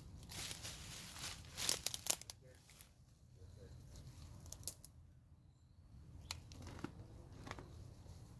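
Foliage and branches being pulled and torn by hand: irregular rustling and crackling, densest in the first two seconds, then a few scattered snaps.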